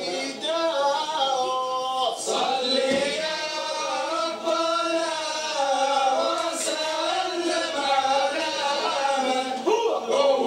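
A group of men singing together, a Libyan zafaf wedding procession chant, with long held notes that waver and slide.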